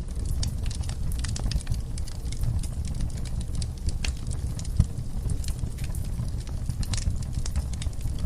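Wood fire burning in a fireplace: a steady low rumble of flames with frequent crackles and pops from the burning logs, one sharper pop a little past the middle.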